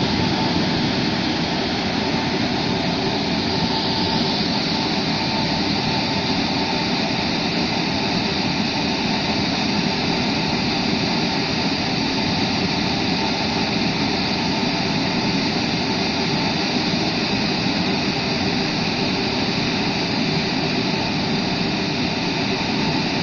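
Tunnel car wash's air dryer blowers running: a loud, steady rush of air with a faint steady hum in it, brightening a little about four seconds in.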